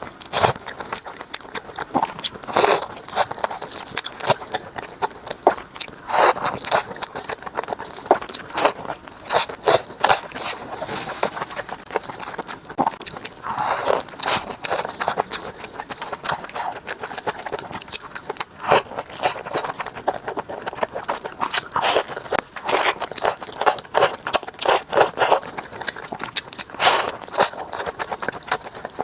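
Close-miked chewing and biting of crunchy food: a long run of crisp, irregular crunches with softer chewing between them.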